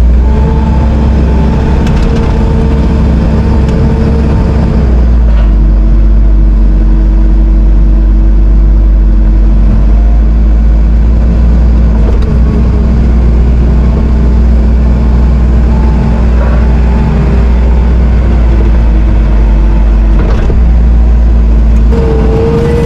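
Bobcat T770 compact track loader's diesel engine running steadily, with a few knocks along the way.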